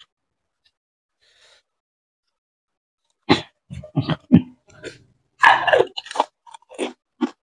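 A person eating fuchka (pani puri), with close-miked crunching and chewing in quick, irregular bites. They begin about three seconds in, and the loudest crunch comes a little past halfway.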